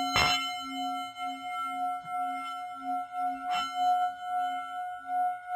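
Singing bowl ringing with a slowly pulsing, wavering tone, struck near the start and again about three and a half seconds in.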